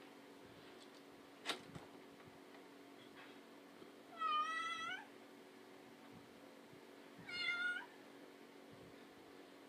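A cat meowing twice, two short calls about three seconds apart, over a faint steady hum. A single sharp click comes a few seconds before the first meow.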